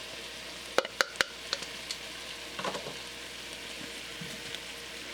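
Sliced bell peppers frying in olive oil in a pan, with a steady sizzle, while a utensil stirs them: three sharp clicks against the pan about a second in, then a few lighter ticks and scrapes.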